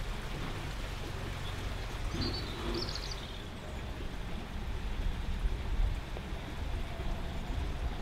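Wind on the microphone: an uneven low rumble over a steady outdoor hiss, with a couple of faint, short high chirps a little over two seconds in.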